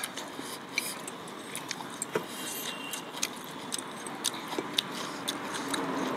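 Close-up eating sounds: chewing with a scatter of small sharp clicks, like a spoon tapping against a dish, a few each second over a steady hiss.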